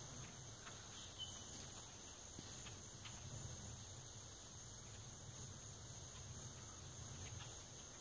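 Faint outdoor ambience: a steady high-pitched drone of insects over a low rumble, with a few faint ticks.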